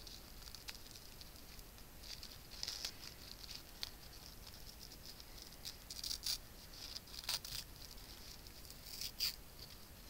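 Faint, short, scattered rustles and crinkles of metallic craft ribbon being handled and tied into a small bow by fingers.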